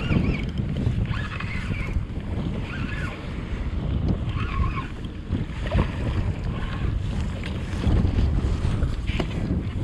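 Strong wind buffeting the microphone in gusts, with waves splashing against a kayak on choppy sea.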